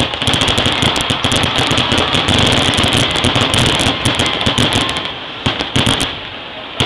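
Aerial fireworks going off: a rapid, continuous crackle of many sharp reports lasting about five seconds, followed by three separate bangs near the end.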